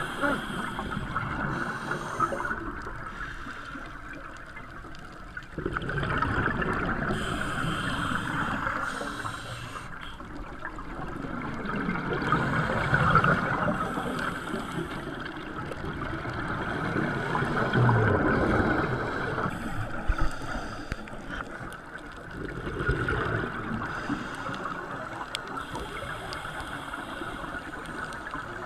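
Scuba divers' breathing heard underwater through the camera housing: regulator breaths and exhaled bubbles gurgling, swelling and fading roughly every five or six seconds.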